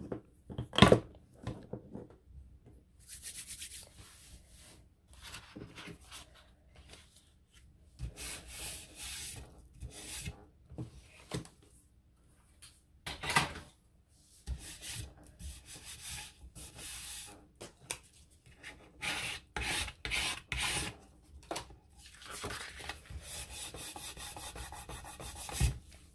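Paper being rubbed and handled on a craft table: irregular rustling and scraping strokes, with a sharp knock about a second in and a quicker run of scraping near the end.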